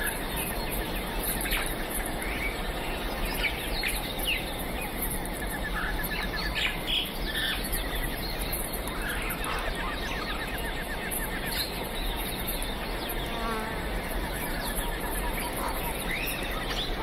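Many birds chirping and trilling over a steady high insect buzz, a busy natural chorus.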